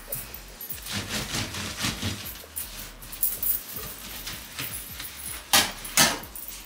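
Household objects being handled: a run of irregular light clicks and knocks, with two sharper, louder knocks about five and a half and six seconds in.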